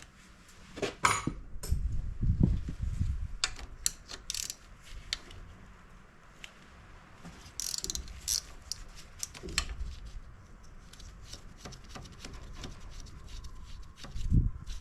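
Metal hand tools clicking and clinking against a small dirt-bike engine, with a few dull knocks, as the cam chain tensioner is worked off the cylinder.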